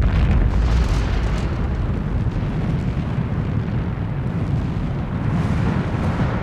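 Volcanic lava dome collapsing and erupting: a deep, continuous rumble with crackling that starts suddenly and loudly, then holds steady.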